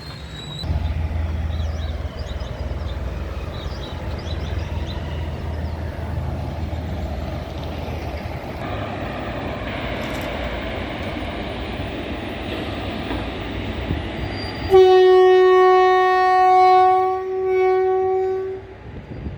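Indian Railways train running past a level crossing with a steady low rumble and rush of wheels on track. About fifteen seconds in, the locomotive horn sounds one long, loud blast held for about four seconds.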